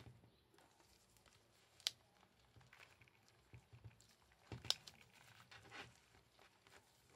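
Faint handling of a men's long wallet in gloved hands: soft rustling and small taps, with a sharp click just before two seconds in and a louder one at nearly five seconds.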